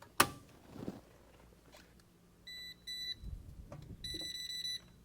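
A sharp click as a circuit breaker is switched on, then beeping from an electronic voltage tester: two short beeps, then one longer beep near the end.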